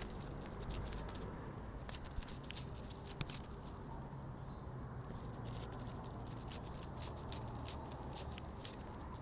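Fluttering-wings sound effect: light, irregular ticks and patter, several a second at times, over a low steady hum.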